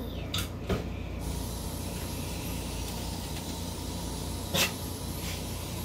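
Steady spray hiss from something being sprayed in the background, starting about a second in and running on for several seconds. A few short clicks sound over it, the loudest a little before the end.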